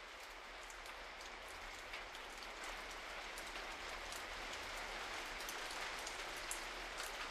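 Steady rain with scattered drop ticks, getting slowly louder.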